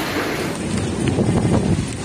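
Heavy hail falling onto pavement: a dense, steady clatter of many hailstones hitting the ground, with wind buffeting the microphone. About half a second in it changes to a second recording of the same storm, with more distinct single hits.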